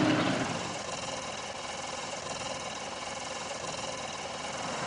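A loud noisy sound fades out over the first second, leaving a faint, steady vehicle engine running at idle.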